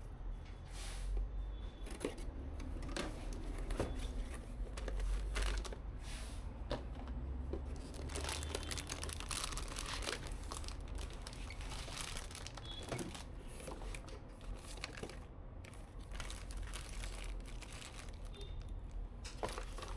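Packaging being handled while unpacking PC components: plastic crinkling and tearing, with irregular rustles and light knocks over a steady low hum.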